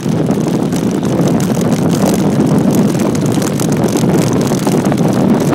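Wind buffeting the microphone and tyres rumbling over a loose dirt and gravel track on a fast bicycle descent, with many small rattles and clicks from the bumpy ground.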